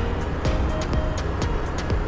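Background music with a steady drum beat and a simple melody.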